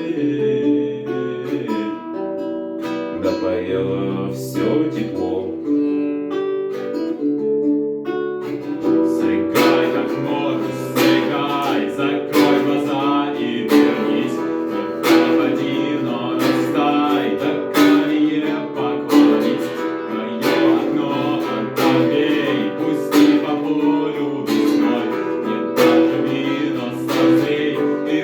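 Guitar played alone in the song's instrumental passage: single picked notes at first, then steady strummed chords from about nine seconds in.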